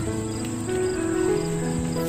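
Background music: a slow melody of held notes stepping from one pitch to the next.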